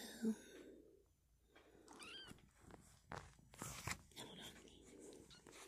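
A young kitten gives a faint, high-pitched mew about two seconds in, rising and then falling in pitch, with soft rustling and small clicks around it.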